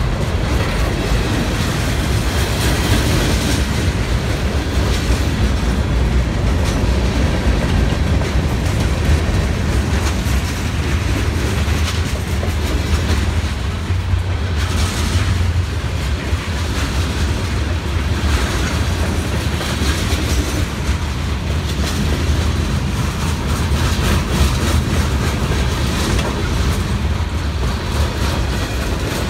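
Freight train cars rolling past at close range: a steady low rumble of steel wheels on rail with repeated wheel clacks over rail joints.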